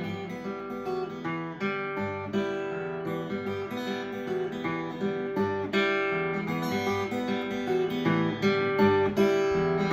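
Acoustic guitar playing an instrumental break: plucked and strummed chords in a steady rhythm, with no singing.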